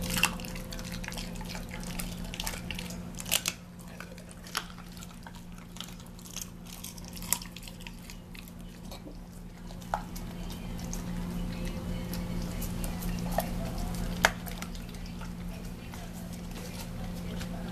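German Shepherd licking and chewing scraps of raw chicken off a tile floor: scattered wet smacks and sharp clicks of tongue and teeth over a steady low hum.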